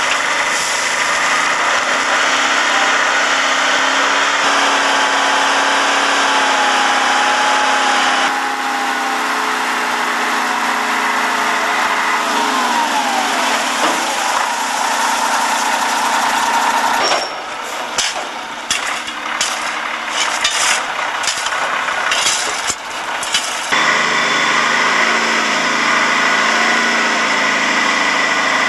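Dump truck's diesel engine running while its raised bed tips a load of sand into a pit. The sound changes abruptly a few times, and for several seconds past the middle it drops lower and is broken by irregular knocks and clatter.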